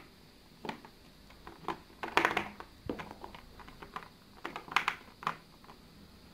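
Irregular light taps and clicks of plasticine sticks being picked up, set down and slid on a wooden tabletop, with busier clusters about two and five seconds in.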